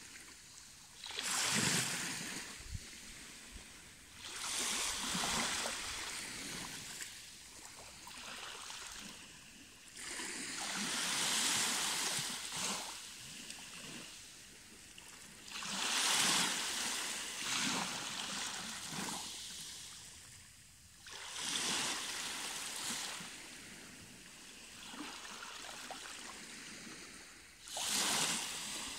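Small waves washing over and around rocks at the water's edge, a hissing swash that swells and fades every five or six seconds.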